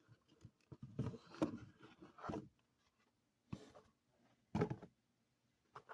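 Soft scraping and rustling of a model locomotive's box and packaging being handled and opened, in about five short bursts with quiet gaps between them.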